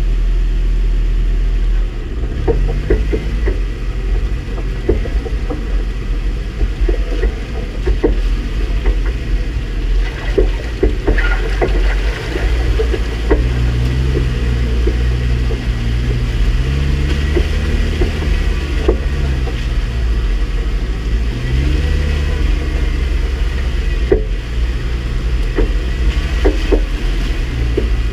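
Jeep engine running at low speed off-road, its revs rising and falling several times, with frequent short knocks and rattles as the vehicle works over rough trail.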